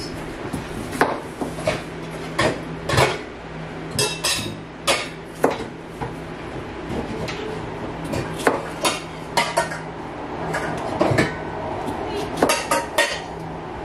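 Kitchen cookware being handled: metal pots, pans and utensils knocking and clinking in more than a dozen separate, irregular clanks, over a steady low hum.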